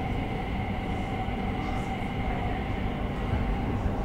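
Inside a Bombardier C30 metro train running on the track: a steady low rumble from the wheels and running gear, with a steady electric whine at several pitches from the traction drive.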